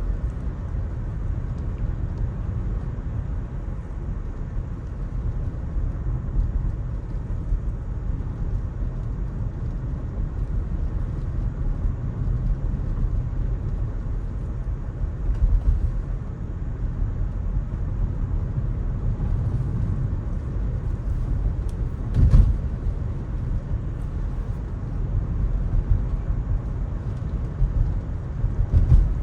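Electric car driving on wet city streets: a steady low rumble of tyres and road with no engine note, and a short thump about three-quarters of the way through.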